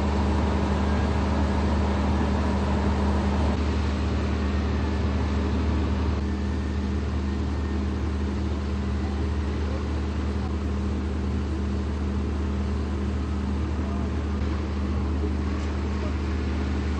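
Construction-site machinery running with a steady low drone, easing slightly after about six seconds.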